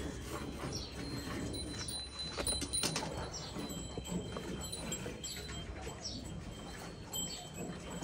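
Hand milking of a cow: rhythmic squirts of milk hissing into a steel bucket, a little more than one squirt a second.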